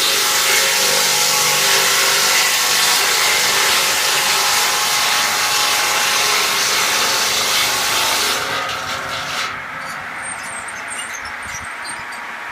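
BA-180 beam sawmill cutting through wood: a loud, steady, hissing saw sound for about eight seconds. It fades out as the cut ends, and the machine keeps running freely, quieter.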